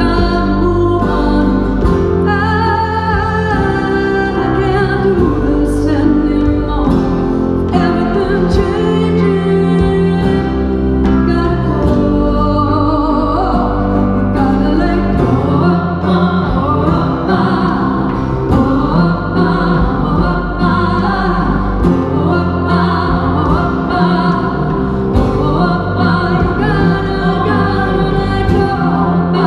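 Live band playing a pop song with singing: sustained sung lines and chords over guitar and keyboard, with sharp rhythmic strikes throughout.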